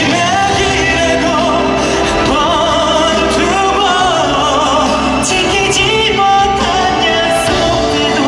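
Male voice singing a Korean pop ballad in Korean over instrumental accompaniment, the melody held with vibrato.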